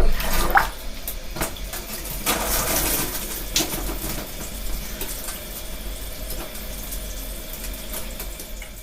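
Water rushing and splashing, with a short rising gurgle about half a second in. It is loudest at the start, settles into a steady rush with occasional splashes, and fades out near the end.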